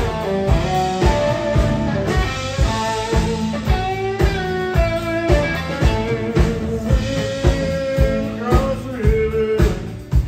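Live blues-rock band: an electric guitar playing a bending lead line over drums and bass, with a steady beat of about two drum strokes a second. The sound dips briefly near the end.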